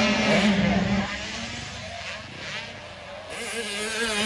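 Motocross dirt bike engines revving hard. The engine note drops away about a second in and builds up again near the end.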